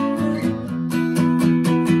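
Acoustic guitar strummed in quick, even strokes, full chords ringing between them.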